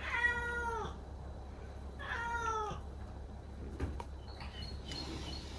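Five-month-old Maine Coon kitten meowing twice, about two seconds apart, each meow a held note that falls in pitch at the end.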